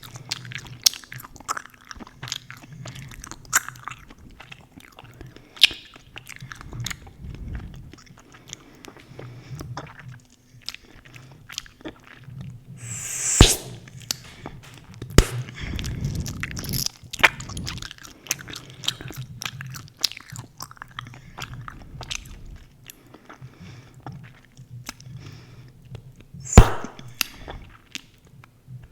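Close-miked chewing gum being chewed, with a constant run of small wet clicks and smacks. Twice, about halfway through and again near the end, a louder sharp pop of a gum bubble bursting.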